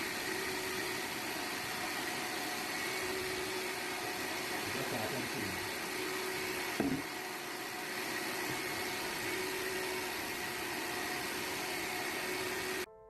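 Electric blower running steadily, blowing air to float the experiment's shapes, with a brief knock about halfway through; it cuts off suddenly near the end.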